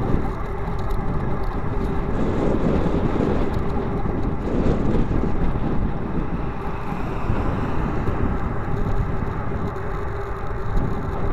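Steady wind noise buffeting a bicycle-mounted action camera's microphone while riding along a highway, a low, even rumble throughout.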